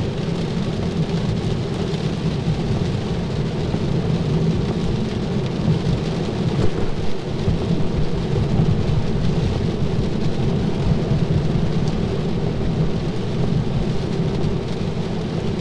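Steady heavy rain on the car and tyres hissing and rumbling over a waterlogged road, heard from inside the cabin of a moving Tesla Model 3.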